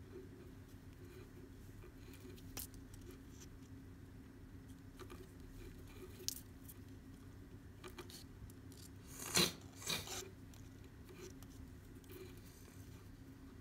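Macrame cord being worked by hand into clove hitch knots: faint scratchy rustles and small clicks, with a louder brief scrape about nine seconds in and a smaller one just after, over a steady low hum.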